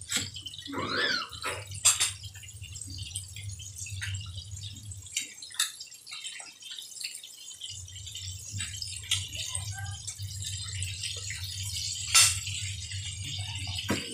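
Chicken pieces deep-frying in hot oil in a wide aluminium wok: a steady sizzle, with metal tongs clicking and scraping against the pan as the pieces are turned, the sharpest clicks about two seconds in and near the end. A low hum runs under it, dropping out for a couple of seconds midway.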